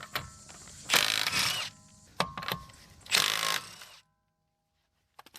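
Power tool, most likely an impact wrench, spinning off the rear wheel's lug nuts in two short bursts about two seconds apart, with a few sharp metallic clicks between them.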